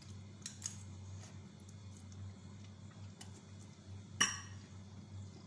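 Metal fork and spoon clinking against a plate of noodles: a few light clinks, then one louder clink about four seconds in.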